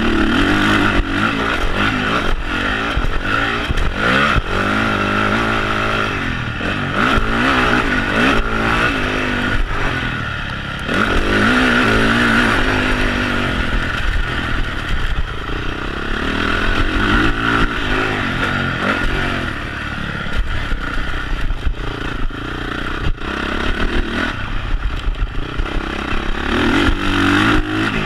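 Honda CRF450 motocross bike's single-cylinder four-stroke engine, through a Yoshimura twin exhaust, revving hard and dropping off again and again as the rider accelerates and shuts off around a dirt track. It is heard close up from the bike, with scattered knocks and clatter over bumps.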